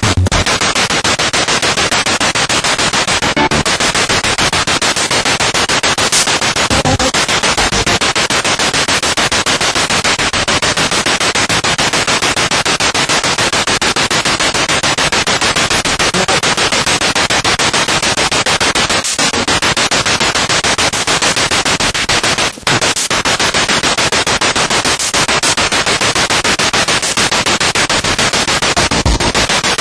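Spirit box radio sweeping through stations: a continuous, loud hiss of static chopped into rapid pulses as it steps from channel to channel. The static briefly drops out a couple of times, once about 22 seconds in.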